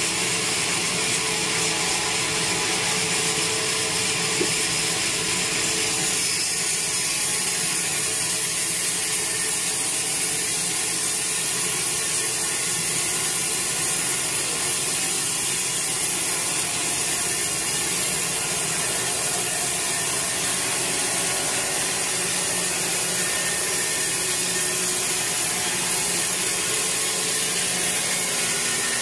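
Sawmill band saw running steadily through a large teak log, a continuous dense hiss of blade on wood.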